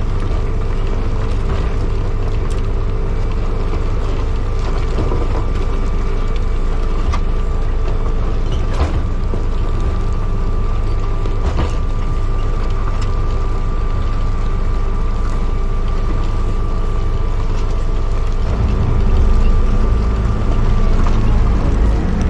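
Motor grader's diesel engine running steadily with a steady high whine over it and occasional knocks. It grows louder about three-quarters of the way through, as the machine works harder.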